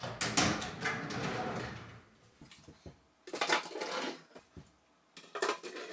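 Wooden vanity drawers being slid into the cabinet and pushed shut: rattling and clicking during the first two seconds, a longer sliding scrape about three and a half seconds in, and a few light knocks near the end.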